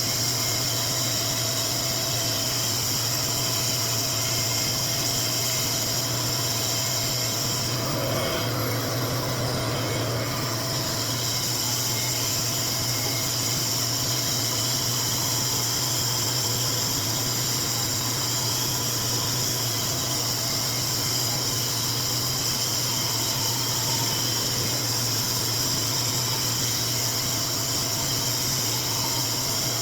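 RevAir reverse-air hair dryer running steadily, its suction motor making a continuous airy hiss over a low hum. The hiss changes briefly about eight seconds in.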